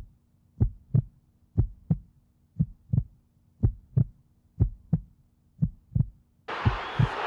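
Heartbeat sound effect: a low double thump, lub-dub, repeating about once a second. About six and a half seconds in, a steady background hiss cuts back in under the beats.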